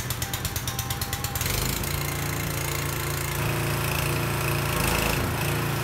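Gasoline-engine pressure washer running, its pump forcing water into a welded steel tank to pressure-test it. A rapid even ticking in the first second and a half gives way to a steadier hum.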